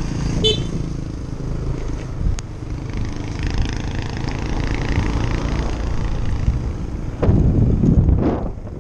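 Motorcycle engine running steadily while under way, mixed with wind and road noise on the camera microphone; a louder burst of rushing noise lasts about a second near the end.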